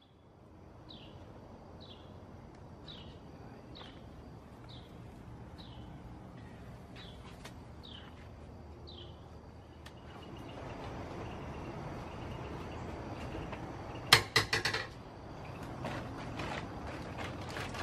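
A short, high falling chirp repeats about once a second for the first nine seconds over a faint steady hiss. About fourteen seconds in comes a loud, sharp clatter, like metal tools being handled, with a few smaller clacks near the end.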